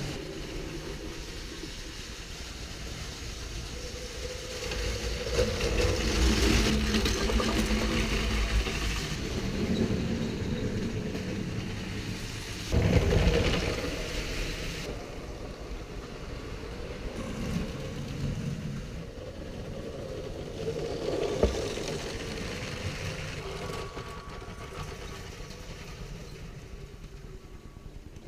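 Motorised LEGO train locomotives running on plastic LEGO track: a continuous motor whir and wheel rattle. It swells as the trains pass close, and turns suddenly louder about 13 seconds in.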